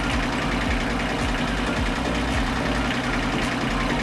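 VST 22 HP mini tractor's Mitsubishi K3 three-cylinder diesel engine idling steadily.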